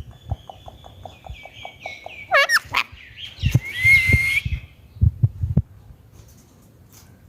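Indian ringneck parrot chattering and whistling, with a run of quick clicking pulses under a warbling note, a couple of sharp screeches about two and a half seconds in, and a whistled note near the middle. Low knocks and thumps come in between.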